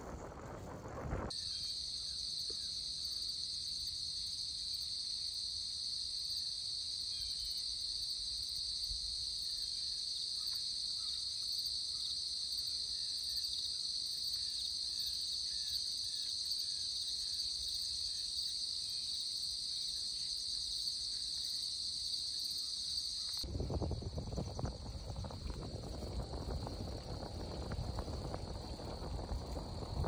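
Steady, unbroken chorus of crickets and other insects in a late-summer field, with a few faint chirps beneath. It starts abruptly about a second in and, about 23 s in, gives way to a low rumble of wind on the microphone while riding, the insects faint behind it.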